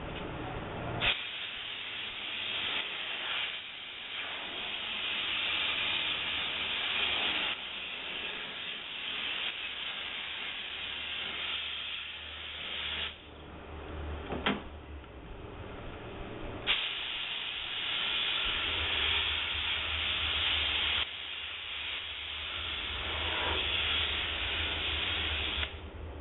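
Optima DMF steam cleaner's wand hissing as it sprays steam onto a vehicle's body. It runs in two long bursts, the first about twelve seconds and the second about nine, with a short click in the pause between them.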